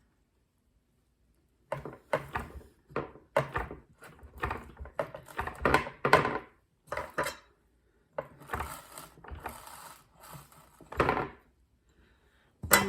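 Irregular knocks and clatters of a utensil pressing Rice Krispie treat mixture into greased muffin cups to shape a nest hollow, with a louder knock near the end.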